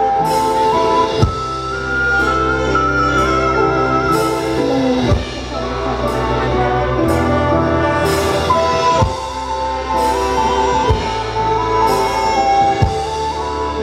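Luk thung band music played through a large PA sound system: a melody line with trills over a steady bass line and drums, with cymbal strokes and a few heavy low drum hits.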